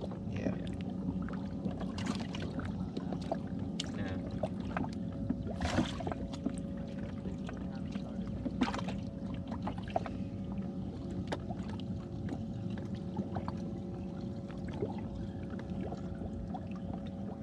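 A small electric motor on a bass boat humming steadily with a faint steady tone, with scattered light knocks and taps on the boat.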